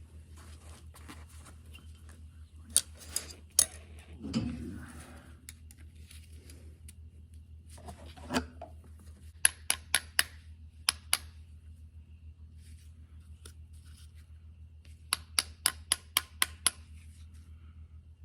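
Small hand tools clicking and tapping on metal as an oil burner's ignition electrode assembly is adjusted: a few sharp clicks and a couple of duller knocks, then two quick runs of about six clicks each. A steady low hum underneath.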